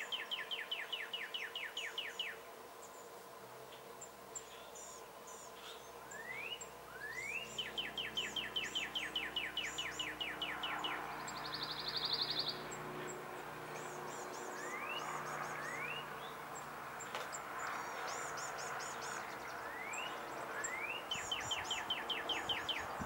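Male northern cardinal singing: three songs, each a rising slurred whistle followed by a fast run of repeated down-slurred notes, with two lone rising whistles between the second and third songs. Fainter, higher calls of other birds and a short buzzy trill about halfway through sit in the background.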